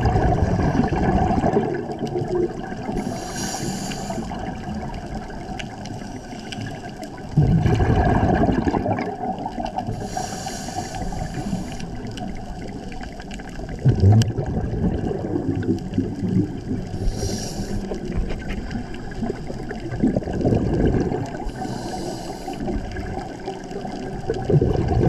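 Scuba diver breathing through a regulator underwater. Short high hisses of inhalation alternate with louder, low rumbling bursts of exhaled bubbles, about every six or seven seconds.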